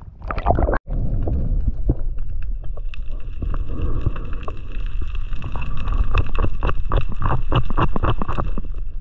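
Muffled underwater sound through an action camera's housing: a steady low rumble with many sharp clicks and knocks, and a faint steady high whine from about three seconds in.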